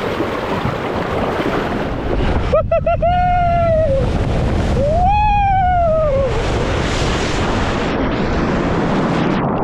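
Steady rush of water with two long, high-pitched vocal cries on top, each rising and then falling: a person squealing or yelling, about two and a half and five seconds in.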